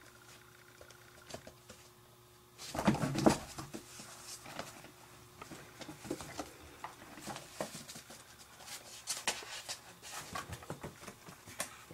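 Kittens scuffling and pawing on corrugated cardboard: irregular scratching, rustling and light tapping, with a louder scuffle about three seconds in.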